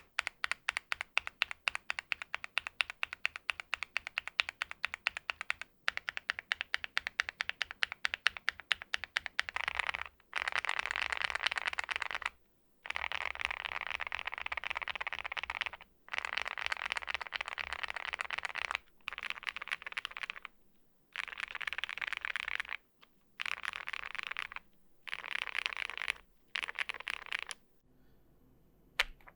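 Mechanical keyboards with gasket-mounted cases being typed on fast: about ten seconds of quick separate keystrokes, then dense runs of rapid typing one to three seconds long, broken by short pauses.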